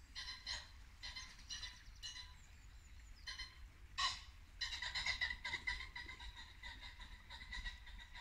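Common pheasant calling: a string of short clucking notes, one loud sharp call about four seconds in, then a fast rattling run of notes.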